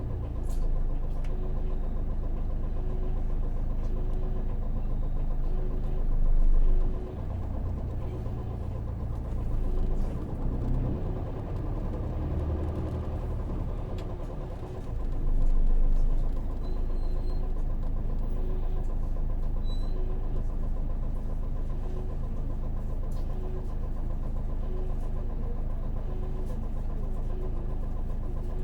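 Interior running sound of a Hino PJ-KV234L1 city bus under way, its 6HK1 diesel engine running steadily. The engine noise swells louder twice, about six seconds in and again about fifteen seconds in.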